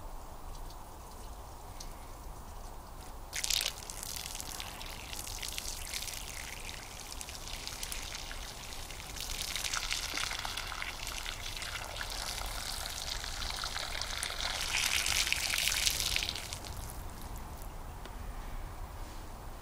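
Hot water poured over a mop head frozen into a block of ice, splashing onto the ice and the wet pavement. The splashing starts suddenly a few seconds in, grows louder about halfway through, and stops near the end.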